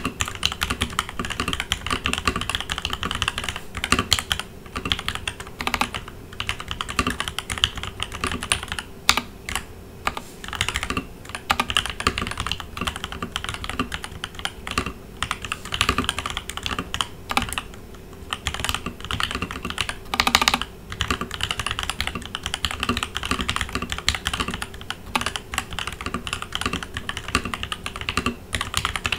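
Continuous typing on a Leopold FC900R PD mechanical keyboard with lubed Gateron Ink Black linear switches, stock keycaps and a Dacron-dampened case. It is a fast, steady stream of key clacks, with a few heavier strokes standing out about four seconds in and again around twenty seconds in.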